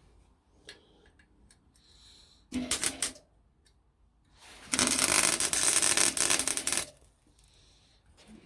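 Welding arc crackling in two bursts: a short one about two and a half seconds in, then a longer, louder one of about two seconds, as short weld passes are struck on a metal part.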